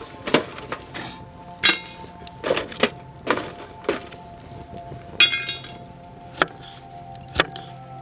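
A series of sharp wooden chops and knocks at irregular intervals, roughly one a second, some with a cracking, splintering edge, typical of wood being split or chopped. Soft background music plays underneath.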